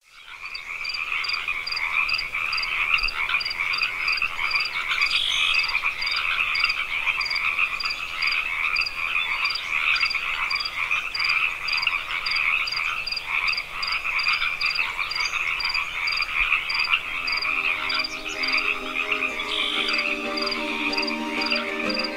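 Dense, continuous chorus of croaking animal calls, with a high chirp repeating about two to three times a second; low music notes come in near the end.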